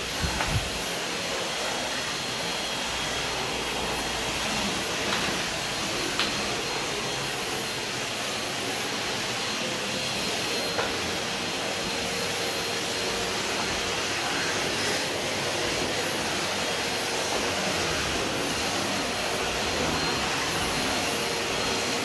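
Vacuum cleaner running steadily as its floor head is pushed over a hard wooden floor, with a few light knocks along the way.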